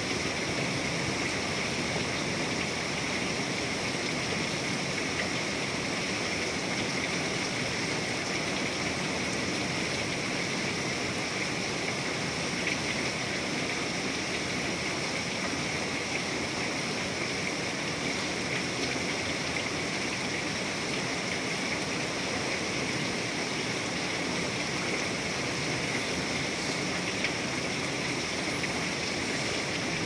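Heavy thunderstorm rain pouring down steadily.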